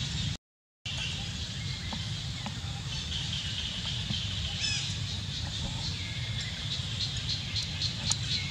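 Outdoor ambience: a steady high insect drone with a few bird chirps, one clear falling chirp about halfway through, over a low rumble. The sound drops out completely for a moment about half a second in, and there is a sharp click near the end.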